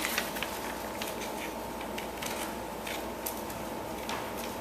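Scissors cutting paper: a string of irregular small snips and clicks, with some paper rustle.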